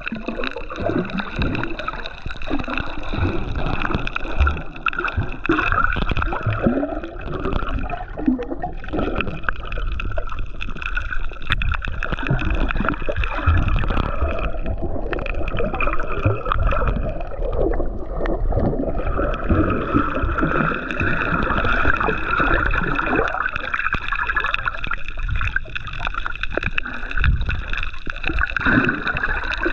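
Muffled underwater gurgling and sloshing of water around a GoPro in its waterproof housing, with a steady low rumble and a faint steady hum running through it.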